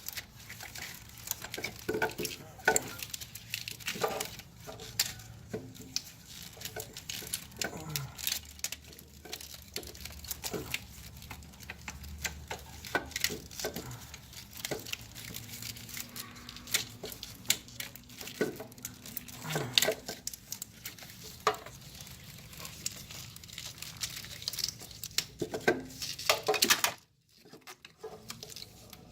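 Irregular metal clinks, knocks and scrapes of an alternator and its mounting bolts being handled and set into place by hand.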